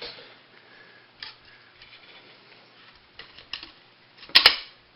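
Small metal clicks and taps from a recoil starter being handled, then a sudden sharp metallic clatter a little over four seconds in: the tightly wound recoil-starter spring slipping out of the pliers and springing loose.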